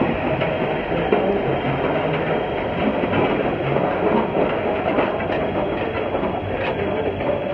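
Rumely OilPull 30-60 E tractor being towed on its steel wheels: a steady mechanical clatter and rumble with light knocks from its wheels and gearing, mixed with a tractor engine running.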